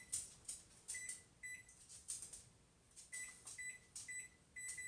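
Electronic oven control panel beeping as its buttons are pressed: a series of short, identical high beeps with faint clicks, about six of them in two groups with a pause in the middle, as the oven is set again after a power cut.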